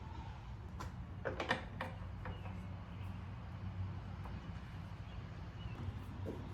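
Handling noises from a bungee cord being hooked and stretched around a cooler on a motorcycle: a quick cluster of clicks and scrapes about a second in, then a few fainter ticks, over a steady low hum.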